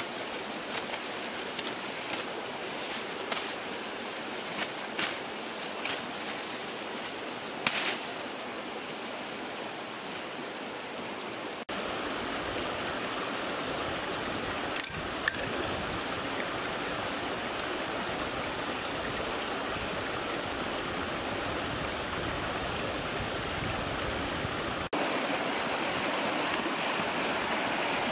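Steady rushing of a shallow rocky stream, louder from about twelve seconds in. During the first eight seconds, sharp snaps and rustles of twigs and leaves as someone pushes through undergrowth.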